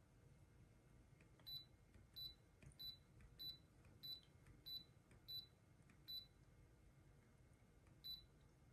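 Short electronic beeps from a humidifier's control panel, about eight in quick succession, roughly three every two seconds, then one more after a pause. A faint low hum lies underneath.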